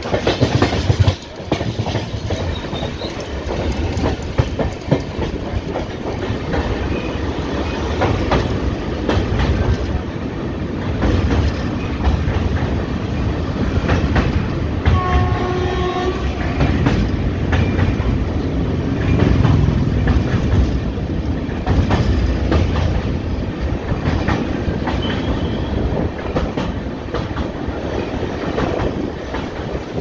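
Passenger train of the Pune–CSMT Intercity Express running, with a steady rumble and wheels clicking over the rail joints. A brief horn sounds about fifteen seconds in.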